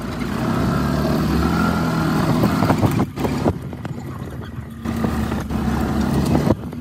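Golf cart driving along a paved cart path: a steady motor hum with rolling and wind noise, dropping briefly about three seconds in and again near five seconds.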